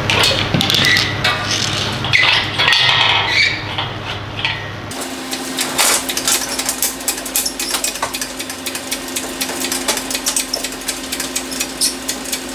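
Metal clanking and rattling from hand tools and metal parts while a Toyota V6 is unbolted and hoisted out of a truck's engine bay. About five seconds in the sound changes abruptly to a steady hum under quick, dense metallic clicking.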